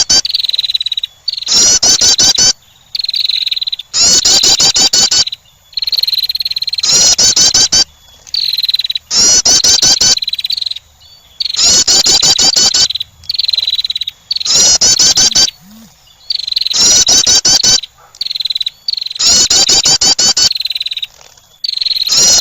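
Female wren calling over and over: a fast, rattling burst about a second long, then a high, thin trill, the pair repeating about every two seconds. This is the call used to lure male birds.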